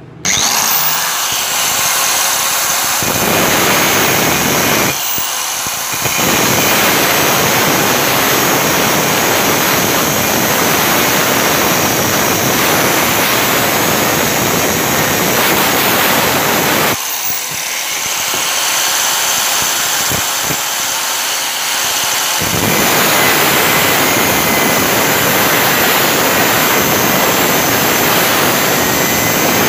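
Angle grinder with a thin abrasive cut-off disc cutting through steel angle iron: a loud, steady grinding whine that starts abruptly just after the start. The sound thins briefly about five seconds in and again for a few seconds past the middle, as the load on the disc eases.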